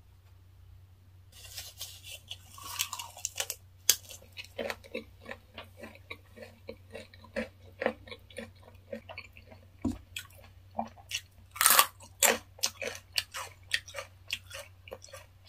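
Close-miked chewing of a perilla-leaf wrap of raw fish sashimi with ssamjang and a raw garlic clove: wet chews and crunches in an irregular run, starting about a second in. A louder crunch comes about three quarters of the way through, a bite into a fresh green chili pepper that is very spicy.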